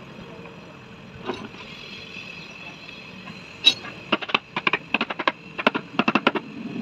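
Pliers knocking on the plastic lid of a lead-acid car battery: a single sharp click, a louder one, then about a dozen quick irregular taps in a burst near the end. A faint steady hum runs underneath.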